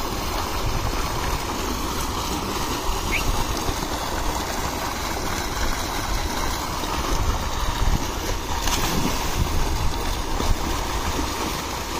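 Water from a tubewell's outlet pipe gushing steadily into a concrete tank and churning its surface.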